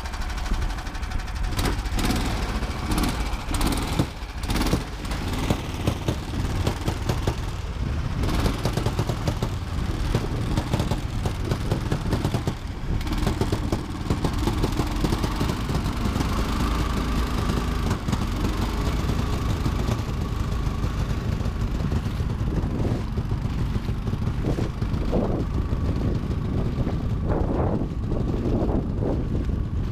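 Engine of a Rostin tracked swamp vehicle running steadily under load as it churns through shallow tundra water and grass, with frequent short knocks and jolts.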